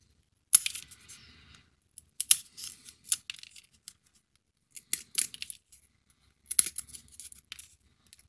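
Clusters of sharp clicks and crackles, about five of them spaced a second or two apart, as small 3D-puzzle pieces are handled, pressed out and fitted into place on the model ship.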